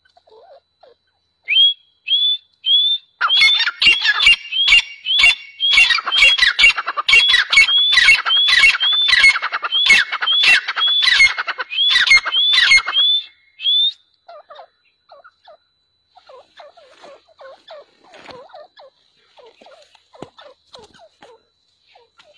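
A pair of grey francolins calling in duet: a few rising notes, then a loud, fast run of repeated calls lasting about ten seconds, which breaks off suddenly. Only faint, softer calls follow.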